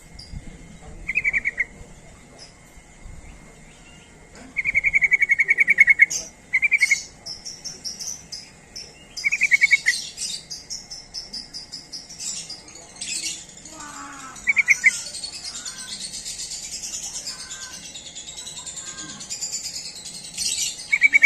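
Yellow-vented bulbul (trucuk) song: short bubbly trilled phrases repeated every second or two, with a dense, high, twittering chatter taking over about halfway through.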